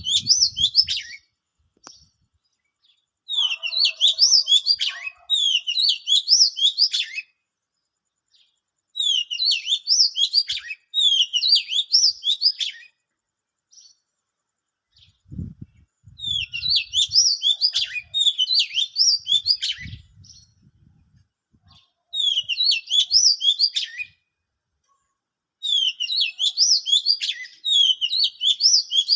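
A songbird singing: bouts of rapid, high chirping notes, each about four seconds long, repeated over and over with short pauses between.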